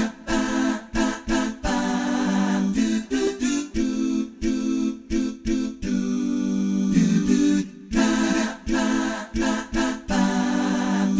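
Wordless a cappella vocal 'aahs' (aahat): a voice sustaining and sliding between pitched 'aah' tones in short phrases with brief breaks, with no instruments.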